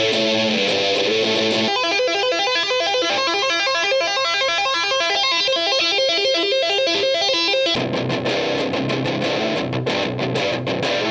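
Electric guitar played through a Death By Audio Fuzz War fuzz pedal into a high-gain amp, a heavily distorted metal riff. For most of the middle it switches to fast, high-pitched repeating notes with no low end. Near the end it drops back into low, heavy chugging.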